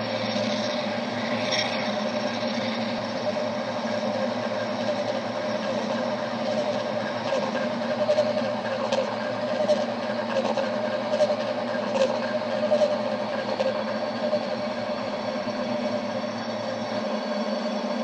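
Electronic tones from loudspeakers spinning round on arms atop tripods, several pitches held at once in a steady, low drone. A lower hum under it drops out near the end, and a few soft clicks come in the middle.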